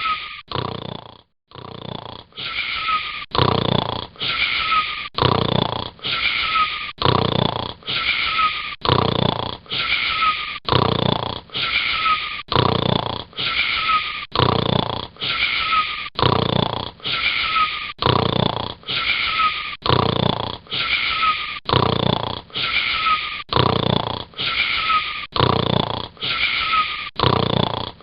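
Snoring in a fast, regular rhythm of wheezy breaths, many carrying a whistling tone. The sound cuts out briefly about a second in, then the same pattern carries on.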